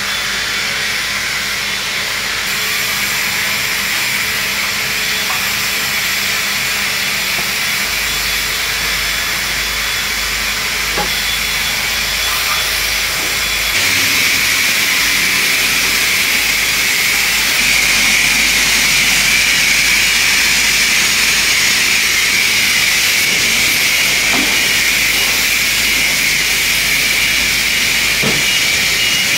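High-pressure car-wash wand spraying water over a dirt-caked sprint car: a steady loud hiss of the jet, which turns louder and brighter about halfway through.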